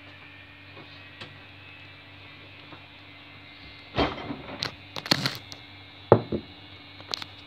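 Knocks and clatter of things being handled on a kitchen counter, starting about four seconds in, the loudest a sharp knock about six seconds in. Before that only a steady low hum.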